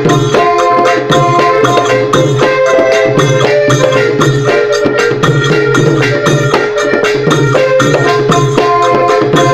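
Thai klong yao long-drum band music: long drums beating a fast, steady rhythm, with a held melody line running over the drumming.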